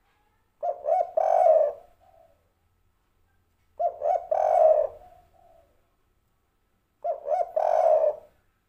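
Spotted dove cooing: three phrases about three seconds apart, each two short notes followed by a longer one.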